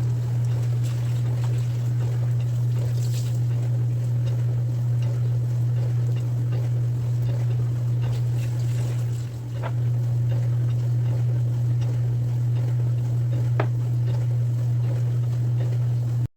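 A steady low hum with a faint hiss over it, dipping briefly about nine seconds in, with a few faint clicks.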